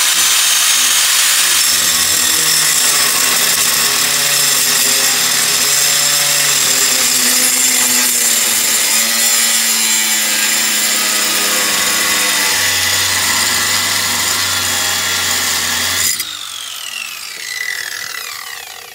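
Grinder with an abrasive cutting disc running hard against a steel coil spring, a loud, steady high-pitched grinding. About sixteen seconds in it is switched off and winds down with a falling whine.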